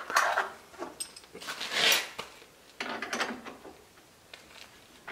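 A few scrapes and knocks as parts of a table saw and a metal frame are shifted and handled, the loudest a drawn-out scrape about two seconds in.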